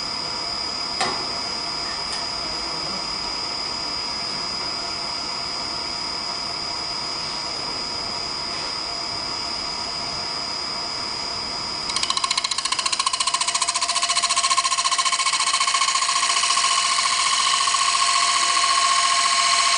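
CNC wood lathe running with a steady high whine from its motors; about twelve seconds in it turns louder, with a fast, even rattle as the cutter works the spinning wood.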